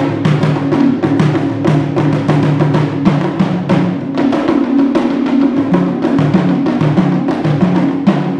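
Ensemble of taiko drums struck with wooden sticks in a fast, driving rhythm, several strikes a second, with the drums sounding at two or three different pitches.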